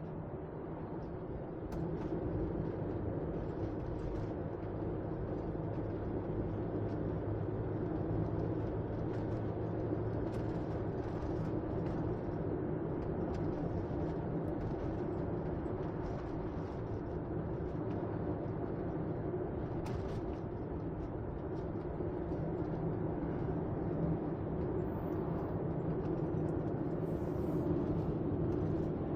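Steady drone of a car driving, heard from inside the cabin: a low engine hum with road and tyre noise, getting a little louder about two seconds in.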